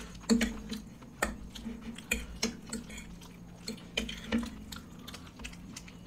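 Eating at the table: irregular sharp clicks and clinks of cutlery against plates, mixed with wet mouth noises of chewing.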